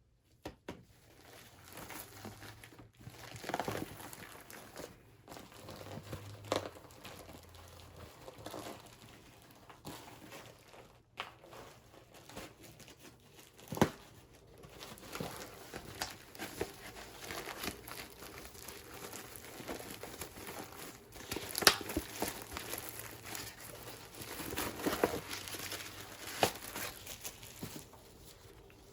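Packaging crinkling and tearing as it is handled and opened: irregular rustling with sharp crackles, the loudest about 14 s and 22 s in.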